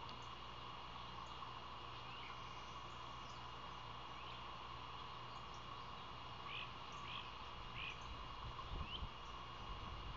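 Outdoor ambience of a steady insect drone with short, scattered songbird chirps. The chirps come several in quick succession past the middle, with a brief low rumble near the end.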